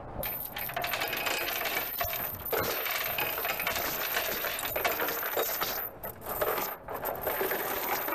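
Steel tie-down chain rattling and clinking as it is handled and pulled through, a steady run of small metal clinks with a couple of brief lulls near the end.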